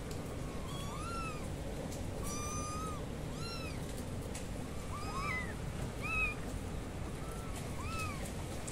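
Kittens meowing repeatedly: short, high-pitched mews rising and falling in pitch, about one a second, two overlapping about five seconds in, over a steady low background noise.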